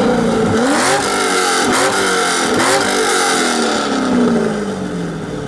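Loud V8 of a modified drag Chevrolet Corvette revving in several quick blips, each note rising and dropping. Over the last couple of seconds the engine note falls slowly and steadily.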